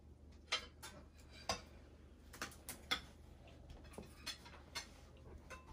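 Cutlery and serving utensils clinking against plates and dishes while food is dished out: about a dozen short, irregular clinks.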